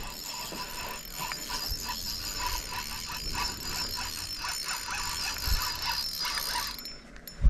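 Spinning reel being cranked, its gears ticking in a quick run of clicks as braided line is wound in against a hooked pike.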